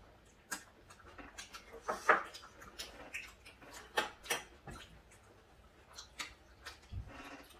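Scattered light clicks and taps of chopsticks and spoons on dishes during a meal at the table, with the loudest tap about two seconds in.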